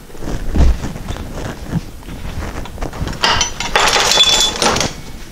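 Steel patch panel held in locking pliers clattering and scraping against a homemade steel corner dolly clamped in a bench vise. There is a dull knock about half a second in, then a longer burst of metallic rattling and scraping with a faint high ring, starting a little past three seconds in.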